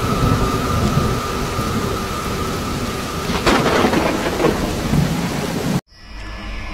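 Thunderstorm with steady heavy rain; about three and a half seconds in a sharp thunderclap cracks and rolls into rumbling. Near the end the storm cuts off suddenly, giving way to a quieter low hum.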